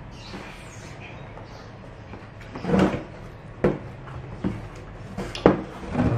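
Cardboard keyboard box being lifted and turned over by hand: a handful of sudden knocks and rustles of the box, about a second apart, starting about halfway through.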